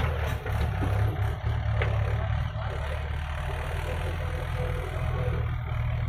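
Diesel engine of a JCB 3DX backhoe loader running steadily while its backhoe bucket works in soil.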